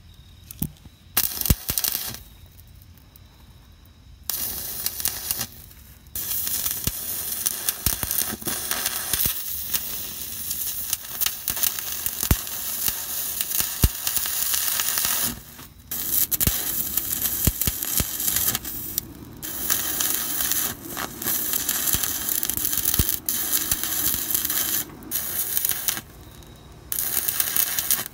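Stick welder arc on a flux-coated rod crackling and sizzling as a muffler connection is welded, in long runs that stop and restart abruptly, with a few short breaks between beads.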